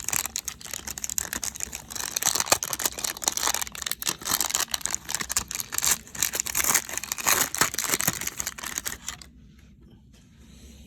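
A 1992 Upper Deck baseball card pack's wrapper being torn open and crinkled by hand, with many sharp crackles and rustles. It stops about nine seconds in.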